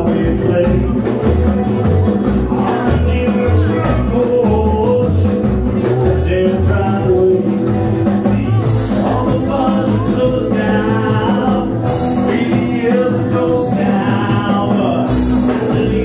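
Live rockabilly band playing: upright bass, hollow-body electric guitar and drums, with a man singing over them.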